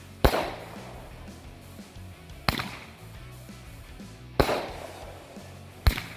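Jumbo Roman candle firing shot after shot: four sharp bangs about one and a half to two seconds apart, two of them trailing off in a crackling, echoing tail.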